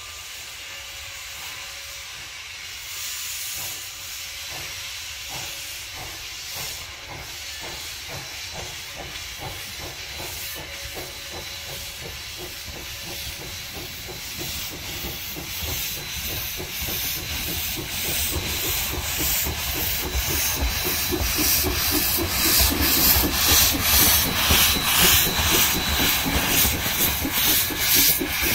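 Narrow-gauge steam locomotive working toward the listener: a steady rhythm of exhaust chuffs over a constant hiss of steam from its open cylinder cocks. The chuffs grow much louder as it nears and passes close by near the end.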